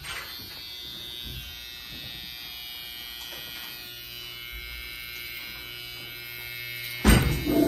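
Cordless hair trimmer with a gold T-blade buzzing steadily while it edges the hairline at the temple and around the ear. A sudden loud noise cuts in about seven seconds in.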